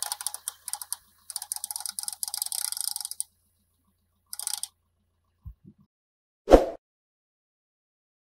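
Clockwork mechanism of a wind-up plastic toy horse clicking rapidly as it walks on asphalt. The clicking stops about three seconds in and comes back briefly around four and a half seconds. A couple of faint knocks follow, then one loud thump about six and a half seconds in.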